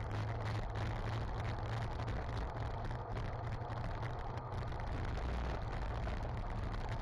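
Steady rush of wind and road noise on a racing bike's onboard camera at about 40 km/h, the tyres running over brick pavement.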